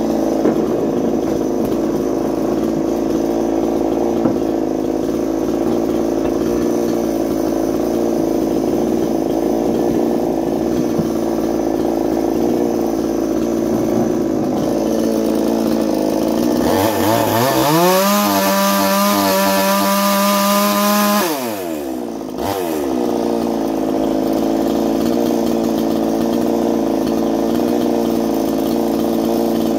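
Ported Chinese 45cc two-stroke chainsaw cutting wood, running steadily at a lower, loaded pitch. About seventeen seconds in it revs up sharply and holds a high pitch for about four seconds, then drops back suddenly and settles into steady running again.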